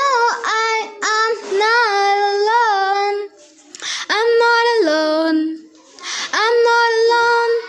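A child's voice singing without accompaniment: long held notes with a wavering pitch, in about three phrases broken by short pauses.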